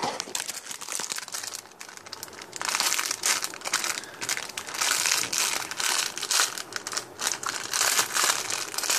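Clear plastic packaging of a squishy toy crinkling as hands squeeze and turn it, in irregular bursts with a quieter stretch about two seconds in.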